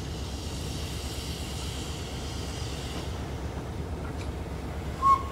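Hunslet Austerity 0-6-0 saddle tank steam locomotive moving off slowly, steam hissing from its open cylinder drain cocks for the first three seconds before fading, over a low rumble of wind on the microphone. About five seconds in comes a brief, sharp high-pitched toot, the loudest sound.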